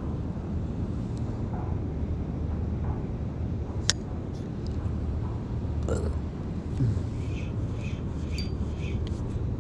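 Spinning reel being handled during a jig retrieve: a sharp click about four seconds in, then light ticking about twice a second near the end as the reel handle is turned. Underneath is a steady low rumble of wind on the microphone.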